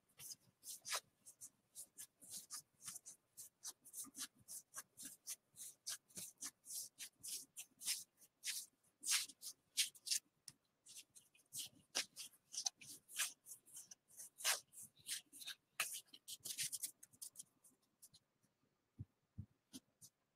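Gypsy Queen baseball cards flipped through one at a time by hand, each card giving a quick papery flick, about four a second. The flicking stops a couple of seconds before the end.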